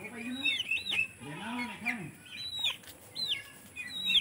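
Young domestic ducks peeping: repeated short, high chirps, with a lower call about one and a half seconds in.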